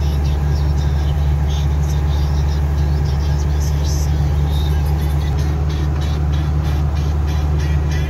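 Car driving at steady speed: a steady low engine and tyre drone.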